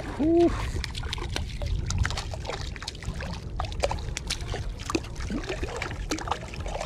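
A small hooked fish splashing and thrashing at the water's surface as it is reeled in through shallow water, with trickling and dripping water and many small crackling splashes over a steady low rumble of wind. A short hummed vocal sound comes just after the start and is the loudest thing.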